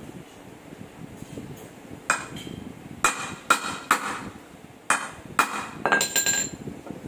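Hammer striking the steel yoke of a driveshaft universal joint, about eight sharp metallic blows with short ringing, beginning about two seconds in. The blows drive the joint's cross and bearing caps.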